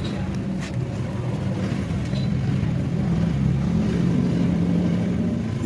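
A steady low engine drone, its pitch wavering slightly, with a couple of faint clicks in the first second.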